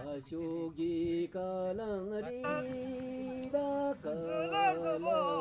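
Voices singing a slow, chant-like song with long held notes, at times two voices at once.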